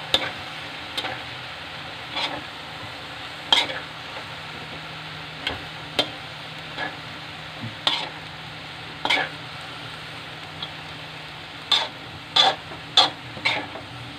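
Cabbage, green beans, carrots and pork sizzling steadily in a hot wok while a spatula stir-fries them. The spatula scrapes and knocks against the wok at irregular moments, with a quick run of knocks near the end.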